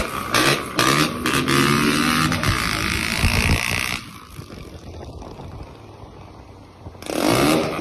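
A 160 cc motorcycle engine revving hard while the bike is held in a wheelie, its pitch rising and falling, with heavy wind noise on the microphone. The sound drops away sharply about four seconds in and comes back loud with rising revs near the end.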